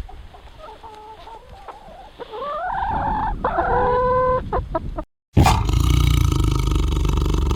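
Chickens clucking, with a rooster's drawn-out crow rising then holding about two seconds in. After an abrupt cut about five seconds in, a much louder, steady animal roar starts.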